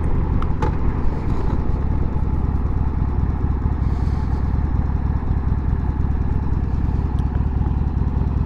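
Harley-Davidson Sportster's V-twin engine running steadily at low road speed.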